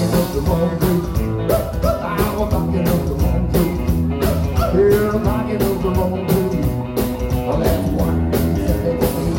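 Live rockabilly band playing: electric guitar over upright double bass and a steady drum beat.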